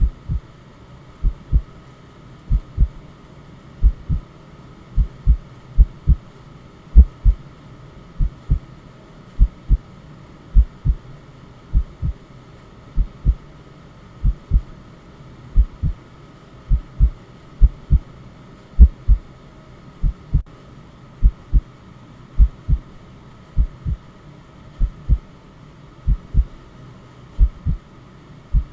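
Recorded heartbeat: paired low lub-dub thumps repeating steadily about once a second, over a soft, steady white-noise hiss.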